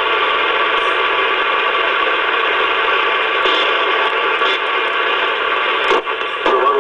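Shortwave AM radio receiver hiss and static, with faint steady whistles running through the noise, all squeezed into the radio's narrow audio band. Near the end the noise briefly dips with a couple of clicks, and a new station's signal begins to come in.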